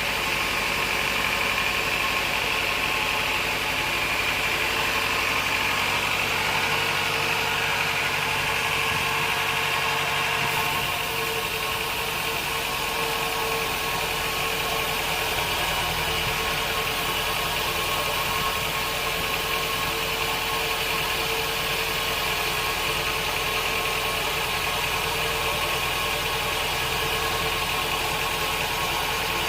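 Sawmill machinery running steadily: a constant mechanical drone with a high whine and a steady hum. The sound shifts slightly about ten seconds in.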